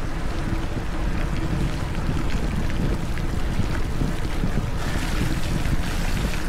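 Wind buffeting an Insta360 X4 camera's microphone during a mountain-bike ride: a steady, deep rush.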